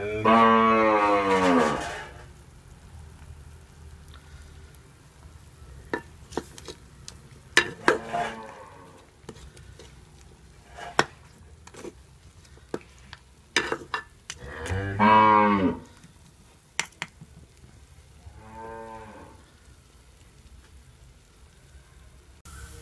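A cow mooing: two long, loud calls, one near the start and one about fifteen seconds in, and a fainter one a few seconds later. In between come scattered sharp knocks of a wooden spoon stirring in a clay cooking pot.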